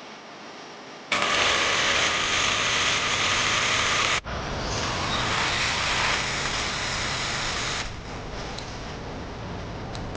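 Electric drill running in two long bursts, about three seconds each, with a brief stop between them.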